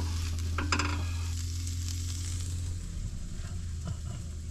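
Chorizo and scrambled eggs sizzling in a hot frying pan, with a spatula scraping through the food to scoop it out. A steady low hum stops about three seconds in.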